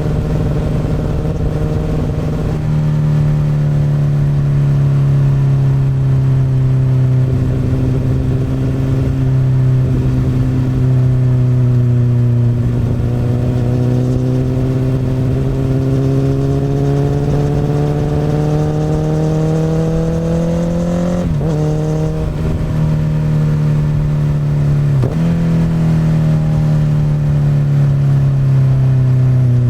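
Honda CBR1000RR (SC59) inline-four running through an Akrapovic exhaust on the move at steady mid revs. The pitch climbs slowly through the middle, then dips sharply and briefly twice near the end.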